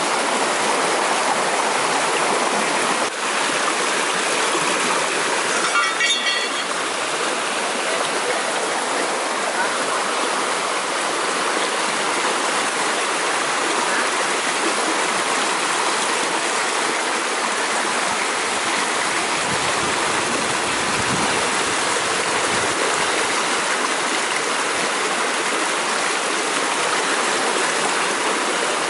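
Fast-flowing river rushing and churning over rocks: a steady, unbroken roar of water.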